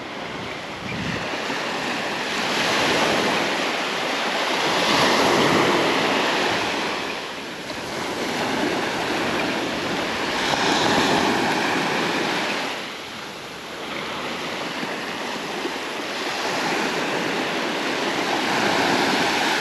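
Sea surf breaking on a sandy beach: a steady wash of noise that swells and falls every few seconds, loudest about three, five and eleven seconds in and again near the end.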